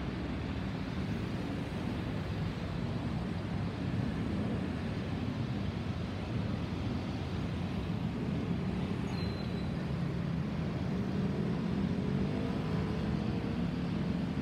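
Distant, steady low rumble of an Airbus A320's CFM56 turbofan engines as the airliner passes high overhead. Faint engine tones show up in the rumble late on.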